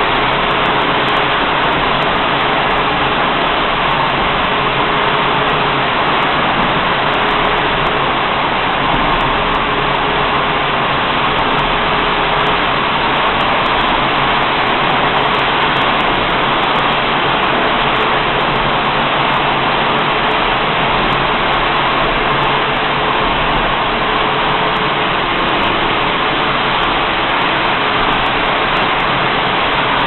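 94-head rotary semi-automatic glass bottle washing machine running with a steady, even mechanical noise as its chain conveyor carries the inverted glass bottles round, with a faint tone that comes and goes.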